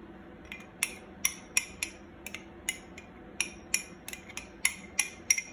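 A spoon clinking against a dish as tahini sauce is drizzled over a plate: a quick, uneven run of about fifteen sharp, ringing taps, a few of them much louder than the rest.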